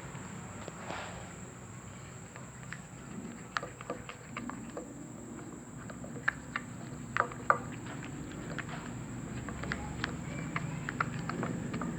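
Slime being stirred in a bowl with a utensil: irregular small clicks and sticky taps as the glue mixture thickens with the boric-acid activator. A thin steady high tone runs underneath.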